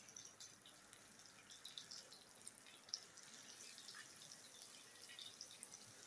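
Kababs frying in a pan of hot oil: faint, irregular sizzling crackles and small pops, with one sharper pop about halfway through.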